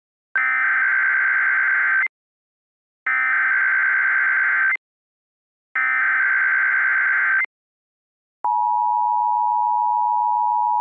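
Emergency Alert System SAME header: three bursts of digital data tones, each a little under two seconds with short gaps between, followed by a steady attention tone of about two and a half seconds that cuts off sharply. It signals the start of a weather-radio alert broadcast.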